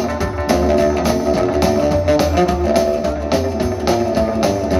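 Live rockabilly band playing an instrumental break with a steady beat: upright double bass, acoustic and electric guitars and drum kit, amplified through a PA.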